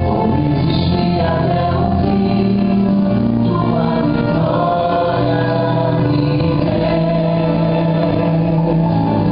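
Gospel worship song with choir-style singing over a steady bass accompaniment.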